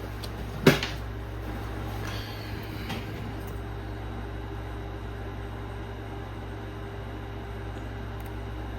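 A single sharp click about a second in, with a few faint knocks after it, over a steady low mechanical hum.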